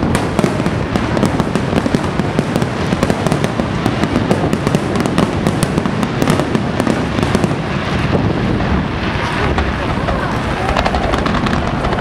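Aerial firework shells bursting in a dense barrage: a continuous, unbroken run of bangs and crackling.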